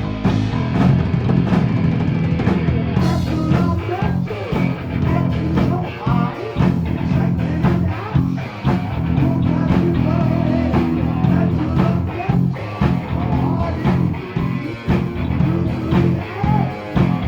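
Heavy metal band playing, with electric guitar, bass and a drum kit. The cymbals and the full kit come in about three seconds in.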